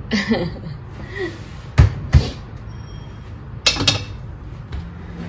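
A metal spatula knocks sharply twice on a stainless steel wok, about half a second apart. Near the end there is a shorter clatter as it is laid in the empty wok.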